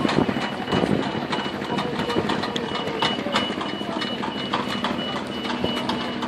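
A barge ferry's motor running steadily at low revs, with a thin, high beeping tone over it and scattered light clicks and knocks.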